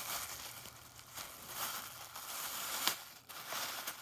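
A bag being worked on over a boot as a makeshift boot cover, rustling irregularly with a few sharper crackles.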